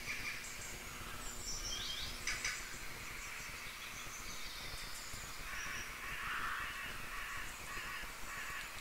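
Faint bird calls in the background: a few quick high chirps about a second in, and a run of rougher repeated calls past the middle, with a single faint click about two seconds in.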